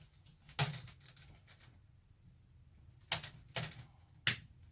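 Plastic laptop screen bezel clips snapping into place as the bezel is pressed onto the lid: four sharp clicks, three of them close together near the end.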